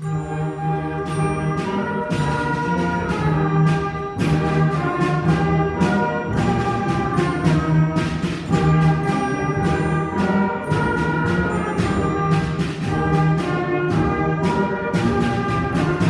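Middle school concert band playing, with brass prominent; the music starts abruptly at the opening and runs on with sustained chords and a steady pulse of note attacks.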